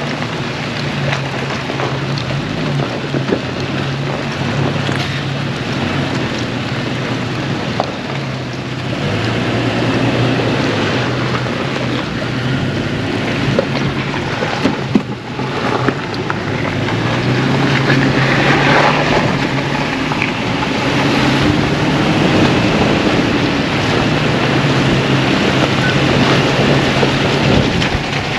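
Off-road vehicle driving a rough dirt road, heard from inside: a steady engine drone under road and tyre noise, with scattered small clicks and rattles. It gets louder about halfway through and again near the two-thirds mark.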